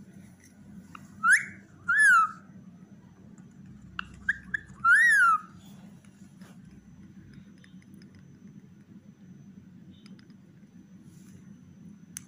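Squeaky rubber chick toy squeezed by hand, giving a few loud, high squeaks that rise and fall in pitch: one about a second in, another near two seconds, a few short chirps around four seconds and a longer squeak near five seconds.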